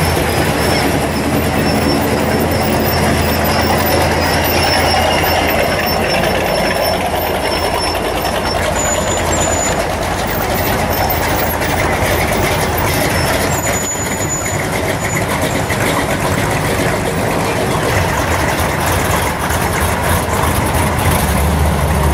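Classic Chevrolet muscle cars' V8 exhausts rumbling steadily as they crawl past one after another at walking pace. Near the end a louder, deeper engine rumble comes in as a Chevy pickup truck rolls up close.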